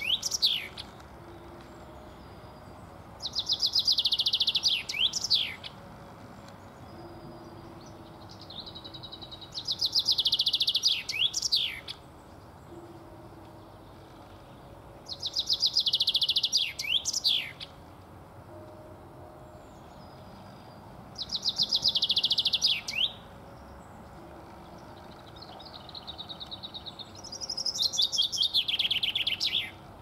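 Male common chaffinch singing its song five times, about every six seconds. Each song lasts two to three seconds: a fast run of repeated whistled notes that ends in a short, sharp flourish.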